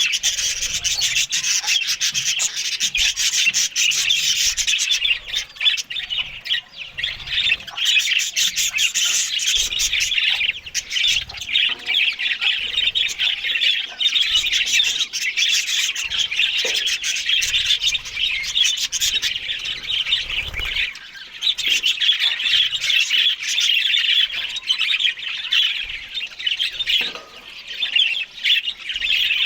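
Budgerigars chattering and warbling without pause, a dense scratchy twittering with brief dips in level.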